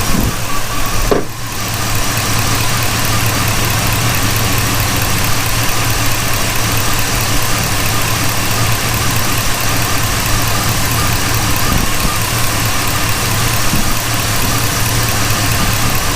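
LS V8 engine in a Chevy Caprice idling steadily. It has a vacuum leak that the owner places near the intake manifold or an injector seal, and a short dip in the sound comes about a second in.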